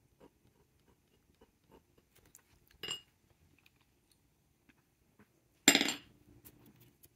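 Two clinks of hard objects knocking together, with a short ring. The first, about three seconds in, is light. The second, near six seconds, is much louder. Faint small taps come between them.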